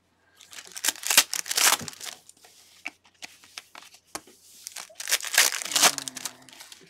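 Foil trading-card pack wrappers and plastic card sleeves crinkling and rustling in gloved hands, loudest about a second in and again around five seconds in.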